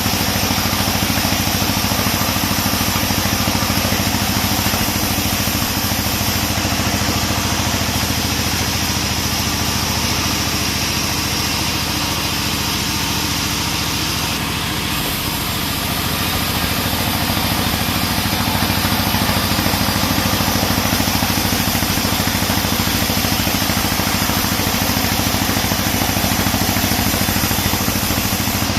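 42-inch band sawmill running with a steady mechanical drone while sawing a teak log; the sound dips slightly about halfway through, then builds back up.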